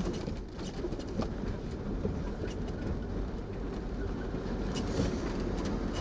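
Four-wheel drive vehicle driving slowly over a rough dirt track, heard from inside the cabin: a low rumble with scattered knocks and rattles.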